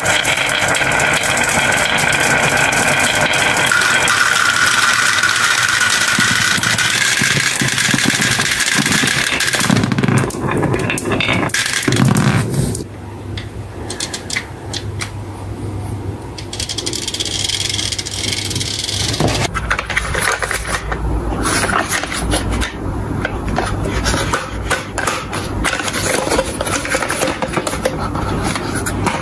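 Glass marbles rolling and clattering down a wooden wave track and dropping into a plastic toy truck's bed, a dense steady rattle for the first ten seconds that ends in a few heavier knocks. Later the marble-laden toy truck is pushed along, and near the end plastic toy trucks are handled with clicking and scraping.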